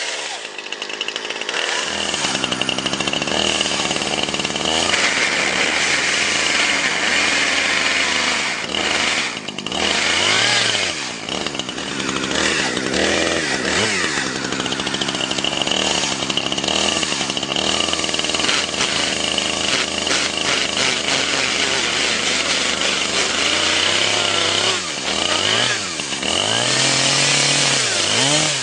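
Chainsaw running and cutting into a Samsung Galaxy S4 smartphone, its revs rising and falling again and again as the throttle is worked.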